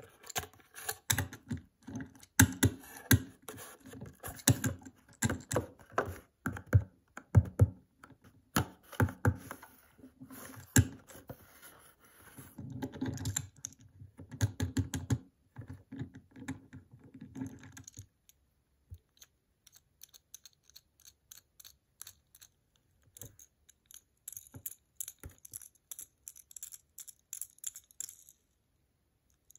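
Clear plastic blister packaging crackling and clicking as a small die-cast toy car is worked out of it, for the first two-thirds or so. After that, only sparse light clicks and taps as the loose toy car is handled.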